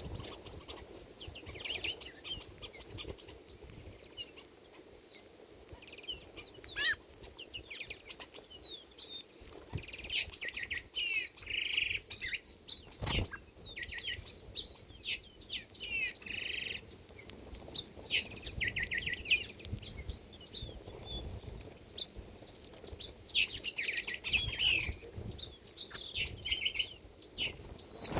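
A flock of small birds chirping, with many short, high calls overlapping, busier from about ten seconds in. A single sharp knock about halfway through.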